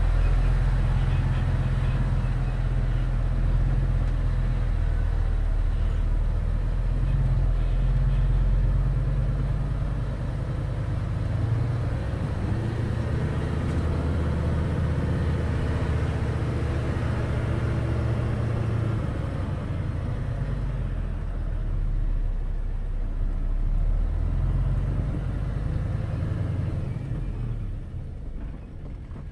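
Isuzu 10-wheeler dump truck's diesel engine heard from inside the cab as the truck drives up a slope, a steady low drone whose note shifts a few times. It eases off near the end.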